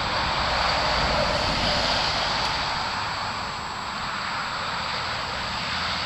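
A passing vehicle's steady rushing noise, loudest about a second in and slowly fading.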